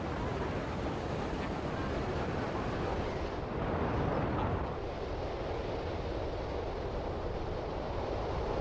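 Steady wash of ocean surf and wind along a rocky seal-colony shore, swelling a little about four seconds in.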